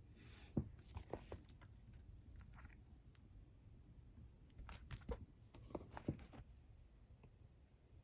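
Faint crinkling and light taps of a vinyl LP's packaging being handled, in two short spells: about a second in and again about five seconds in.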